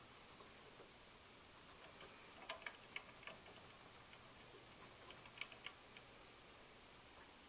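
Near silence with faint clicks: a run of about four soft ticks some two and a half seconds in, and another near five and a half seconds in.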